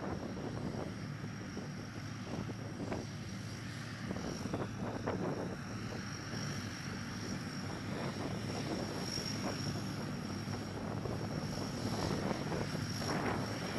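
The four Allison T56 turboprop engines of a Lockheed C-130H Hercules running as it taxis. A steady high turbine whine rides over the low drone of the propellers.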